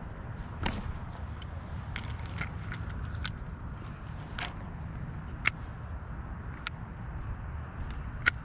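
Several sharp clicks, roughly a second apart, from handling a spinning rod and reel while working a lure, over a low steady rumble.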